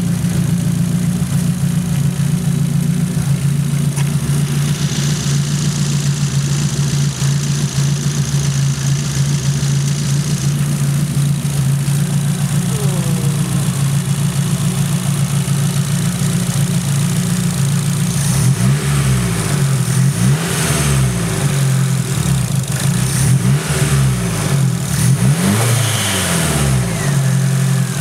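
Turbocharged Nissan SR20 four-cylinder engine idling steadily, then blipped through several short revs, each rising and falling back to idle, over the last third.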